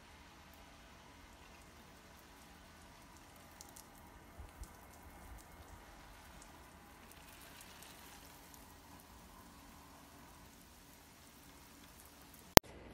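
Oscillating lawn sprinkler spraying water: a faint, steady hiss of spray and falling drops on the grass, with a few small ticks around four seconds in. A single loud, sharp click near the end.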